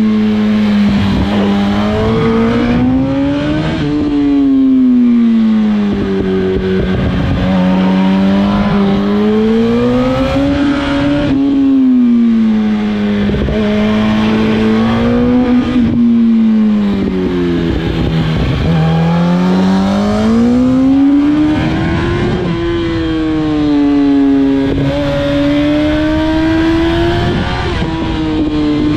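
2007 Yamaha R1's 998 cc inline-four engine ridden hard up a winding climb, the revs rising and falling again and again as the bike drives out of bends and backs off into the next ones.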